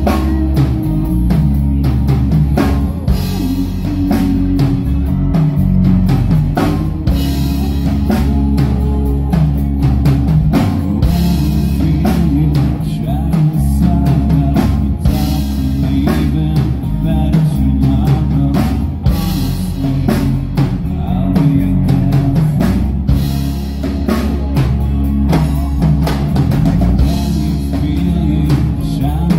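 Live rock band playing loudly: drum kit, electric guitar and bass guitar.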